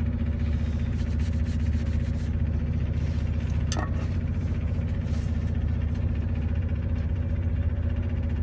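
Train running, heard from inside the carriage: a steady low engine drone and rumble with a fixed low hum. There is a brief click about four seconds in.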